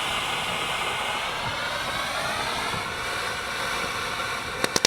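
Consumer firework fountain ("Pink Diamonds") spraying, a steady hiss, with sharp crackling pops breaking out near the end.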